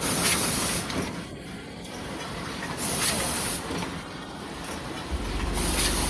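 Automatic powder bag-filling packaging machine cycling, with a short sharp hiss of compressed air about every three seconds over a steady mechanical background. A low steady hum comes in near the end.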